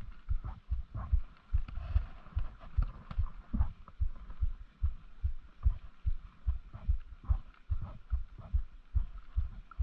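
Rhythmic low thumps about three a second: handling noise from cranking a spinning reel to retrieve a lure on an ultralight rod, carried to a body-worn camera.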